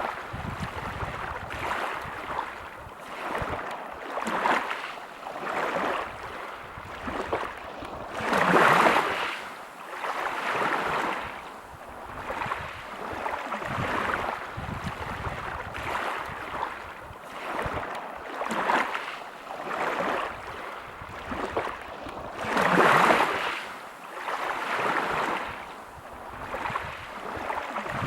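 Sea waves breaking and washing over a pebble beach, the surf swelling and ebbing every couple of seconds. Two bigger waves break about nine and twenty-three seconds in.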